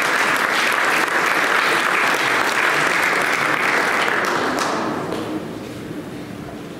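Audience applauding a guest being welcomed to the stage, fading out a little under five seconds in.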